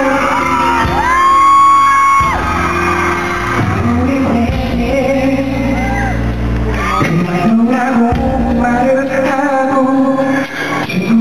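Live concert music with singing heard from the audience in a large hall, with fans screaming and whooping close to the microphone. The loudest moment is a high, held scream about a second in.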